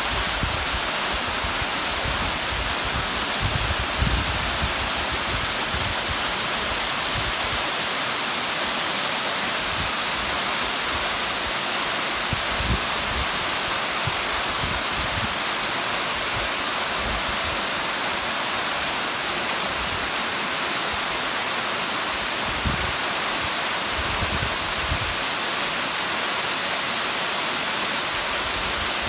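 Crabtree Falls, a waterfall spilling down a steep rock face into a pool, making a steady rushing hiss of falling and splashing water.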